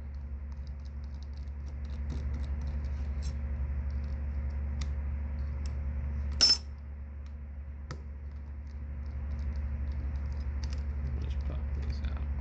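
Small metallic ticks and clicks of a precision screwdriver working the tiny screws out of a phone's inner frame, with one sharper click about six and a half seconds in, over a steady low hum.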